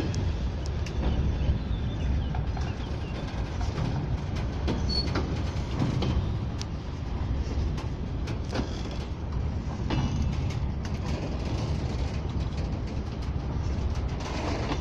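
Freight train of open-top gondola wagons rolling slowly past: a steady low rumble of steel wheels on the rails, with scattered sharp clicks and clanks from the wheels and couplings.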